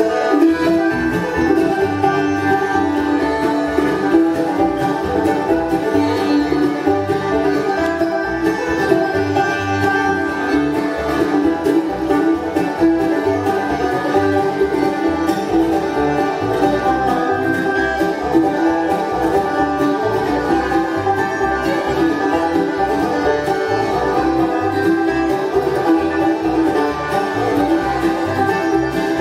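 Bluegrass band playing live on banjo, fiddle, mandolin, upright bass and acoustic guitar, all kicking in at once at the very start and then running at a steady drive.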